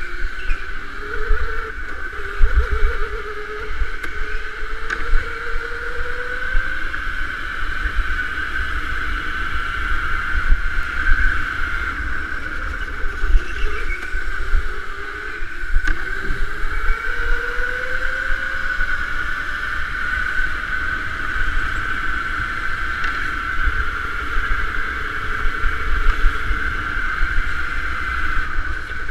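Electric go-kart motor whining steadily at speed, with a lower tone rising twice as the kart accelerates out of corners, over a constant low rumble from the kart on the track.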